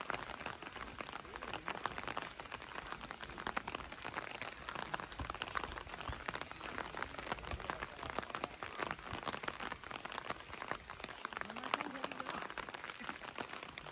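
Light drizzle, its drops striking close to the microphone in a dense, steady crackle.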